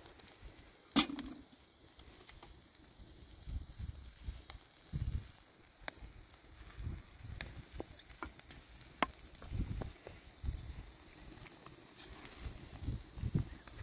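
Wood embers crackling under kebab skewers in a stone fire pit: scattered sharp crackles and pops, the loudest about a second in, with soft low thumps in between.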